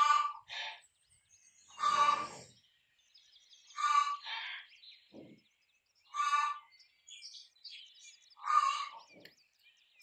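Rooster giving short, harsh agitated calls every two seconds or so, some in quick pairs, each about half a second long. Small birds chirp faintly between the calls.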